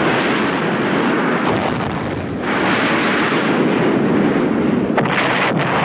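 Yasur volcano exploding as giant gas bubbles burst out of the magma and throw out lava bombs. A loud, continuous blast noise that surges again about two and a half seconds in and once more near the end.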